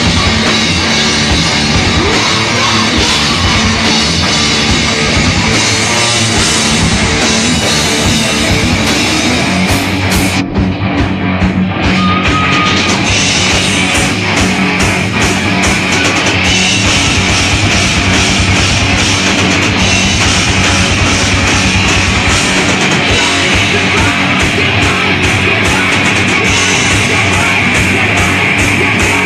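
Live rock band playing loud, heavy, distorted music: electric guitar and a full drum kit with cymbals. The sound thins briefly about ten seconds in, then carries on at full volume.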